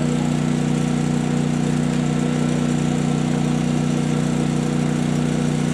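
Generator and air compressor used to charge an air cannon, running as a steady, even drone.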